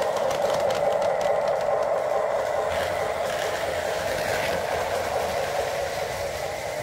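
Lionel O gauge model freight train rolling on three-rail tubular track: rapid clicking of the wheels over the rail joints for the first couple of seconds, under a steady rolling rumble that slowly fades as the train moves away.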